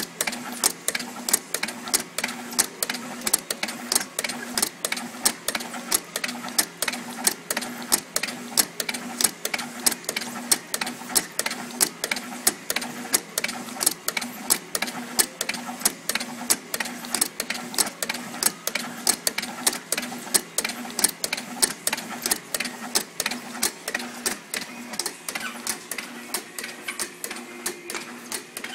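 Automatic pot labeling line running at 5000 pots per hour, feeding nested plastic plant pots from a stack: a fast, regular clatter of sharp clicks, about three a second, over a steady machine hum.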